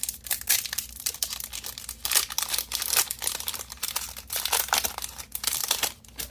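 Foil booster-pack wrapper of a Magic: The Gathering card pack being torn open and crinkled by hand, a dense irregular crackle that stops near the end.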